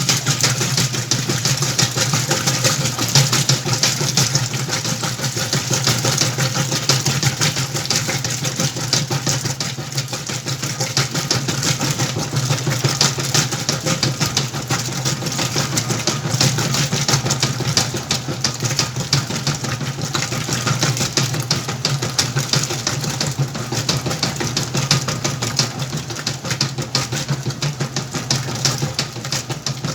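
Whirlpool washing machine running a wash cycle: a steady motor hum with a dense, continuous rattle from the churning drum.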